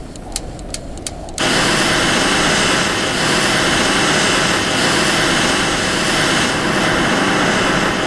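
A few light clicks, then about a second and a half in an electric hot-air gun switches on and its fan blows with a steady, loud rushing hiss. The gun is held against a candle wick to light it.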